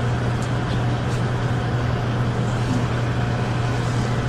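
Room tone: a steady low hum with an even hiss over it.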